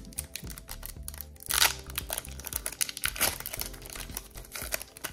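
Foil wrapper of a Pokémon booster pack crinkling and being torn open by hand, loudest about a second and a half in, over background music.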